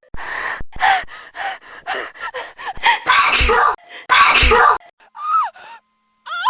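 A woman's exaggerated sneeze fit: a quick run of sharp gasps, then two loud sneezes about a second apart, then a short cry falling in pitch.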